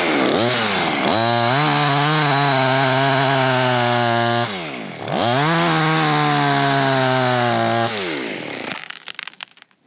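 Small two-stroke clone chainsaw at full throttle, cutting into wood. It holds high revs for a few seconds, dips briefly, revs up again for a couple more seconds, then falls off near the end.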